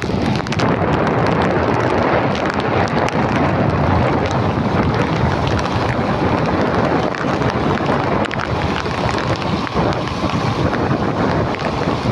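Loud, steady wind noise buffeting the microphone of a phone carried on a moving motorcycle.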